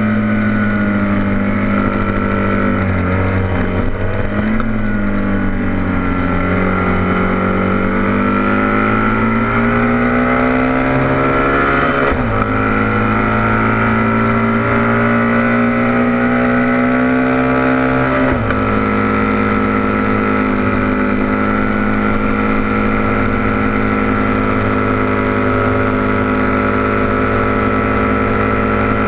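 Vintage racing motorcycle engine under hard acceleration, heard from on the bike: the pitch climbs steadily through a gear, drops sharply at an upshift about twelve seconds in, climbs again and drops at a second upshift about eighteen seconds in, then holds a steady note.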